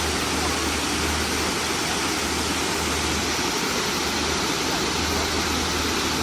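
Waterfall: falling water rushing and splashing, a steady, even noise with no change in level.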